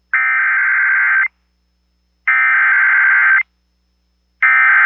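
Emergency Alert System SAME header over FM radio: three identical, evenly spaced blasts of buzzing digital data tones, each a little over a second long with a second of silence between them. These blasts are the coded start of an EAS alert, here a severe thunderstorm warning.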